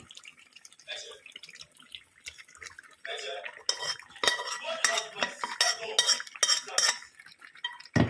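Metal spoon clanking and scraping against a metal cooking pot as pumpkin is stirred into a stew, light clicks at first, then a busy run of ringing clanks through the middle. A dull thump right at the end.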